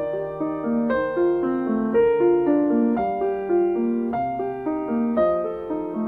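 Solo piano music: a flowing line of single notes, a few each second, over held lower notes.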